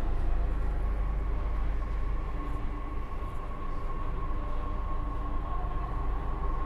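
Delhi Metro train running, heard from inside the car: a steady low rumble with a whine held at one pitch, easing slightly as the train slows into a station.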